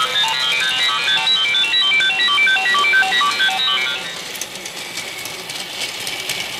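Fast electronic chime melody of short, high single notes, like a ringtone, that stops about four seconds in, leaving a steady hiss with faint clicks; the melody starts over just afterwards.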